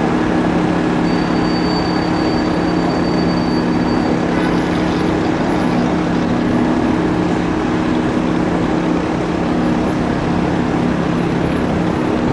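Steady engine drone with a low, constant hum of several pitches. A faint high whine sounds from about one to four seconds in.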